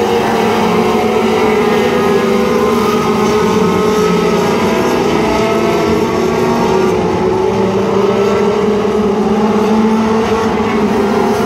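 A pack of four-cylinder dirt-track race cars running together around the oval, several engines overlapping in one steady drone that rises and falls slightly in pitch.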